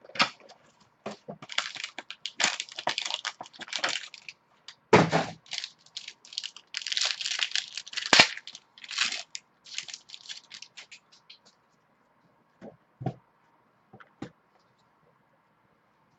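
Trading-card packaging being torn open: irregular bursts of crinkling and tearing for about ten seconds, then three light knocks.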